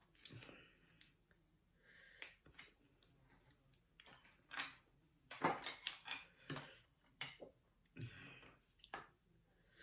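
Scattered light clicks and taps of a spoon and chopsticks against oyster shells and dishes, with a few soft rustles. The loudest cluster of clinks comes about five and a half seconds in.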